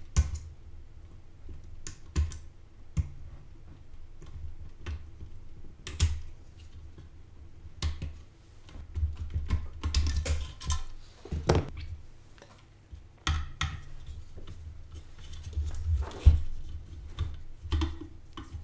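Irregular clicks, scrapes and rustles of hand work inside an opened ATX power supply: a hobby-knife blade scraping at hardened glue on the circuit board and bundled wires being pushed aside, with a screwdriver going onto a fan screw near the end.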